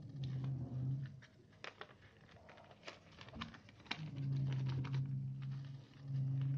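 Sheet of paper being folded and creased by hand into an origami model: scattered sharp crackles and rustles of the paper. A low steady hum sounds through the first second and again over most of the last two and a half seconds.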